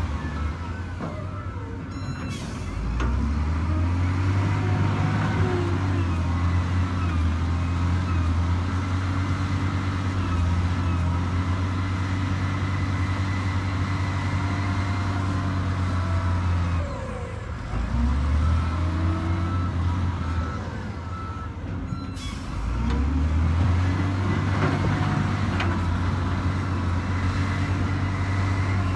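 Bulldozer's diesel engine running steadily under load. It eases off briefly about seventeen seconds in, then again for a couple of seconds a little later, before picking back up.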